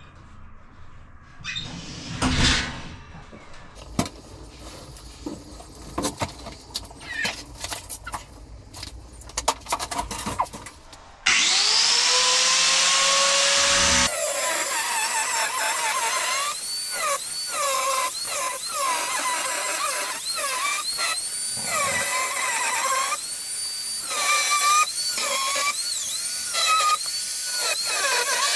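A few knocks and clicks, then about eleven seconds in an angle grinder spins up with a rising whine and cuts into a polished stone benchtop. Its pitch drops and recovers again and again as the disc bites into the stone.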